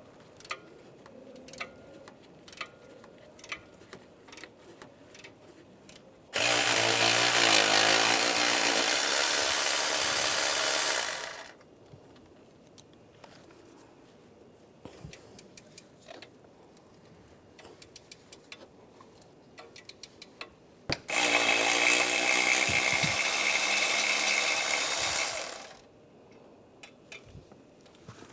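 Power tool on a 15 mm socket running in two bursts of about five seconds each, spinning nuts off the exhaust flange studs. Faint clicks and taps of tools come between the bursts.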